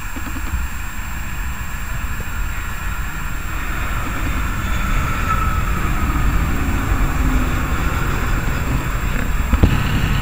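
Airbus A320 airliner's jet engines on landing approach, growing louder as the plane passes low overhead, with a whine that falls in pitch about five seconds in. A short knock near the end.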